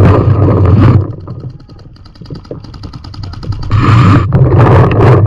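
Loud low rumble of wind and movement on the camera's microphone. It drops away for a couple of seconds in the middle, where a rapid string of sharp paintball marker shots snaps across the field, then the rumble comes back.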